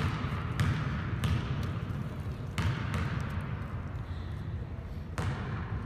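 A basketball bouncing on the gym floor, as in a free-throw shooter's dribbles: three thumps in quick succession at the start, another about two and a half seconds in, and one more near the end.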